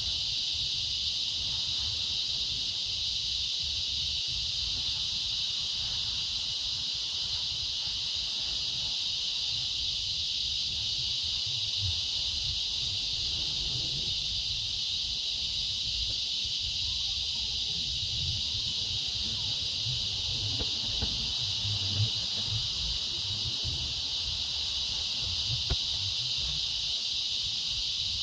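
Steady high-pitched drone of an insect chorus, with a faint low rumble underneath.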